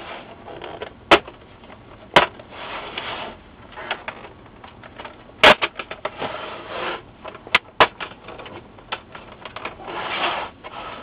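Plastic snap-in catches of an LCD monitor's front bezel popping loose as the bezel is pried up around its edge: five sharp snaps, the loudest about five and a half seconds in, with plastic scraping and rubbing between them.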